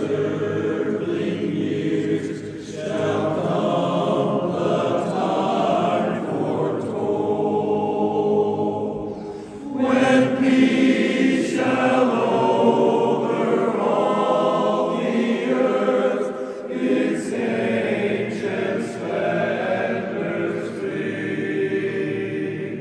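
Barbershop chorus singing a cappella in close harmony, with brief pauses between phrases, the longest about nine seconds in.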